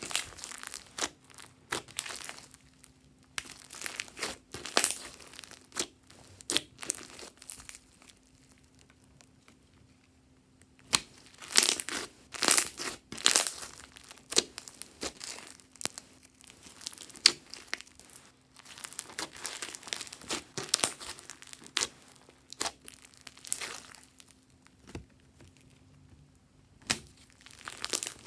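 Hands squishing and stretching glossy slime, making sticky crackles and pops in uneven bursts, with a quieter pause about eight to eleven seconds in.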